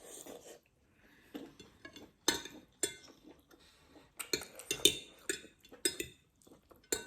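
Eating utensils clinking and tapping against a dish at irregular intervals while noodles are eaten. The clicks come thicker and closer together in the second half.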